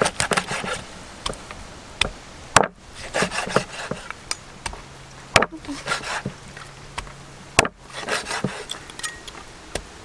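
A steel cleaver chopping pieces of water snake on a wooden cutting board. Irregular knocks and taps, with three heavy chops standing out.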